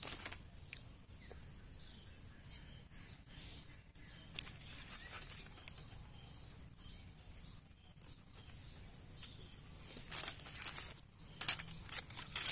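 Faint, scattered small metallic clicks and ticks as thin spring rings are handled and fitted into the grooves of a single-cylinder diesel engine piston, with a cluster of louder clicks near the end.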